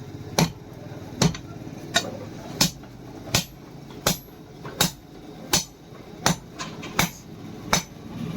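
Blacksmith's hand hammer striking steel from a truck leaf spring on an anvil, in a steady rhythm of about one and a half blows a second, each with a short metallic ring; a few lighter taps fall between the blows near the end.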